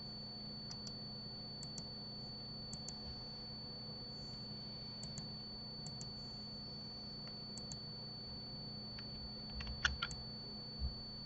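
Computer mouse and keyboard in use: quick double clicks of press and release every second or so, then a louder cluster of clicks and keystrokes near the end followed by a single low knock. A faint steady high whine runs underneath.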